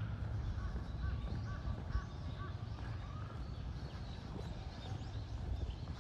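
A crow cawing: a quick run of about five short calls in the first half, over a steady low rumble.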